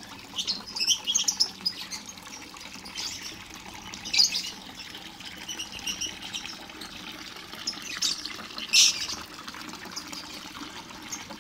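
Lovebirds chirping in a colony aviary: scattered short high chirps, a flurry in the first second or so, with two louder sharp squawks about four and nine seconds in. A brief flutter of wings near the start.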